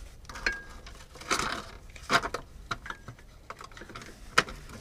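Ball-headed Allen key turning a differential drain plug out by hand: scattered light metallic clicks and clinks, with a brief ringing ping about half a second in.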